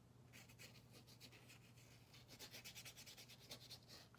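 Small paintbrush working a wet wash of paint onto paper: faint, quick brushing and scratching strokes in short runs, starting about a third of a second in.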